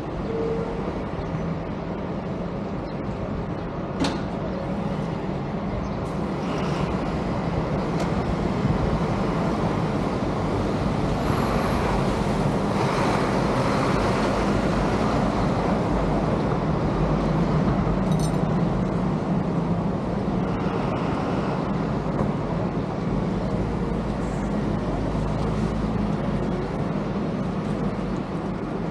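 Steady road-vehicle noise: an engine running with traffic and road rumble throughout, and a single sharp click about four seconds in.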